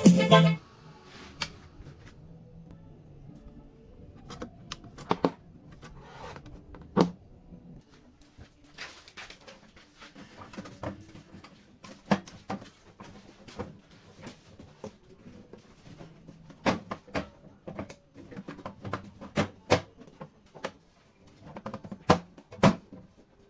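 Irregular light clicks and knocks, scattered unevenly, of things being handled in a small room.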